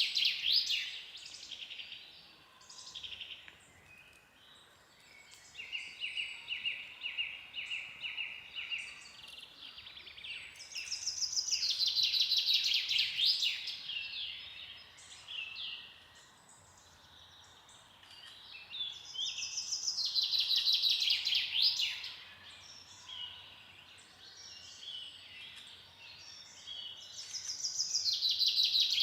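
Songbirds singing in a forest. One bird repeats a loud, fast, trilled song of many descending notes lasting two to three seconds, about every eight seconds. Another bird gives an even, lower-pitched trill for about three seconds near the start.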